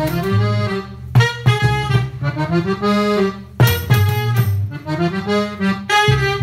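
Balkan brass-band style music, with an accordion carrying the melody over a low bass line.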